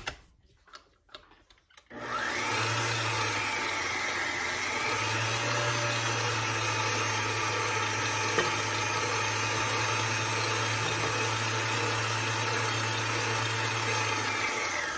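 Electric mixer switched on about two seconds in, running steadily as it beats softened cream cheese, butter and pineapple flavouring into a glaze, then switched off just before the end. A few faint knocks of utensil on bowl come before it starts.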